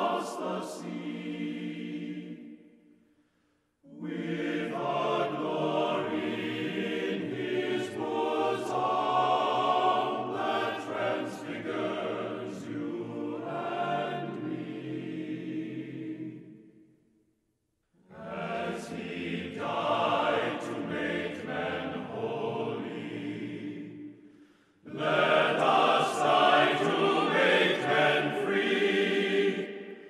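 Choral music: a choir singing held phrases, breaking into silence twice, about three seconds in and again around seventeen seconds.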